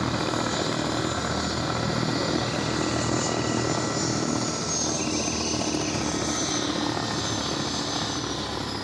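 Helicopter turbine engines running on the ground, a steady rumble with a high whine that falls in pitch about halfway through and again near the end as the engines wind down.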